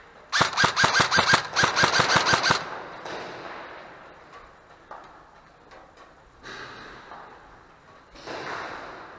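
Airsoft gun firing a rapid string of shots close by, about seven a second, with a brief break partway through. Quieter knocks and rustling of movement follow.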